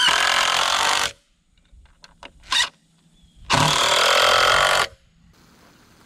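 Cordless drill driving exterior wood screws into a 2x4: two bursts of about a second each, the second starting about halfway through, with a few light ticks between them.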